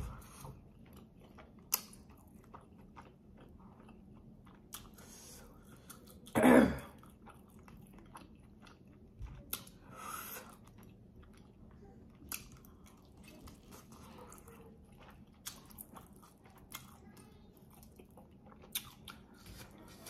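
Close-up eating sounds of chewing and biting into chicken, with scattered crunches and sharp mouth clicks. A single much louder, brief sound breaks in about six and a half seconds in.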